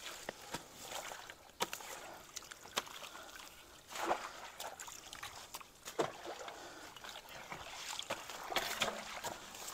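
Creek water sloshing and splashing as people wade and pull branches from a debris jam at a culvert, with scattered sharp knocks and snaps of wood. A louder splash comes about four seconds in as a stick is thrown into the water.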